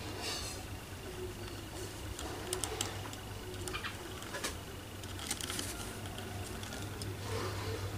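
A quiet stretch: a steady low hum with scattered faint clicks and short scratchy rustles, and no clear dove call.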